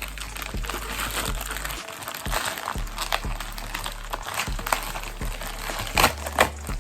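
Background music with a steady beat and bass, over the crinkling and rustling of packaging being handled and opened, with a couple of sharper crackles near the end.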